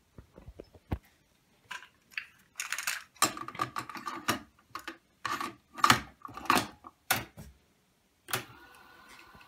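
Plastic clicks and clatter of a cassette being pushed into a Technics RS-B905 cassette deck's door and the door snapped shut. Near the end a button clicks and the deck's tape transport starts up with a faint steady whir.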